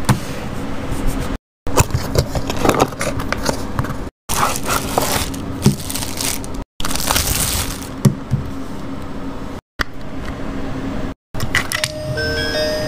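Clear plastic bag crinkling and rustling as a small toy figurine is unwrapped, with a few sharp clicks, in short takes broken by abrupt cuts. Near the end a chiming melody of bell-like notes begins.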